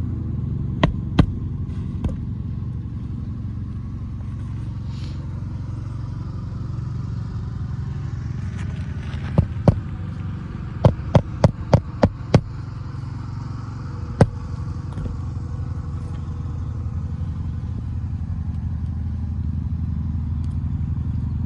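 Hammer driving roofing nails back into an asphalt shingle: a few separate blows, then a quick run of six blows at about three a second just past halfway, and one more after it. A steady low hum runs underneath.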